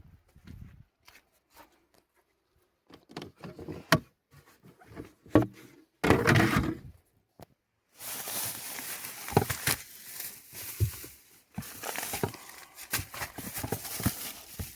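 Close handling noises. Scattered knocks and thunks come first, with a louder scraping rush about six seconds in. From about eight seconds there is dense, continuous rustling and crackling with many small clicks.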